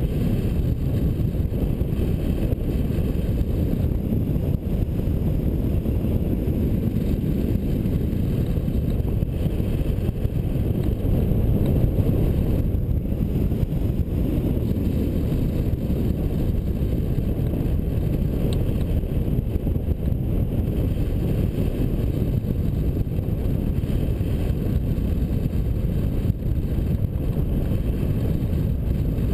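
Steady deep rush of wind blowing over the microphone of a camera mounted on a hang glider in flight, unbroken and even throughout.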